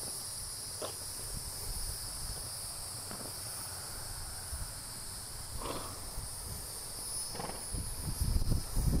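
Steady high-pitched drone of insects in a grass pasture, with a couple of short blowing breaths from the horse around the middle. Near the end come low thuds of the horse's hooves on grass as it starts to walk.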